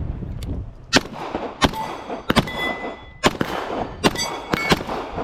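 Beretta M9 9mm pistol firing about six shots at a steady pace, most followed by the brief metallic ping of a hit steel target plate.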